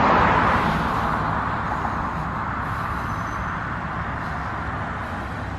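A car passing on the road, its tyre and engine noise loudest at the start and then fading away.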